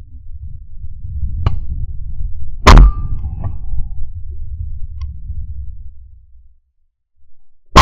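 Shotgun fired at clay targets: one loud sharp report about two and a half seconds in and a second report right at the end, over a low rumble.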